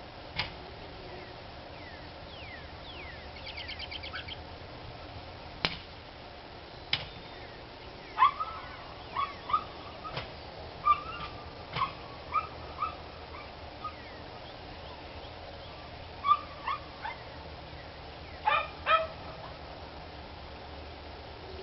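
A dog barking in bursts of short barks, irregularly spaced, starting about eight seconds in and stopping shortly before the end, with quieter stretches between.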